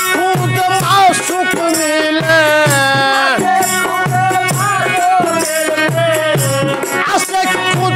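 Bengali folk devotional music, instrumental: a bamboo flute carries a sliding melody over harmonium, with a steady dhol beat and small hand cymbals jingling.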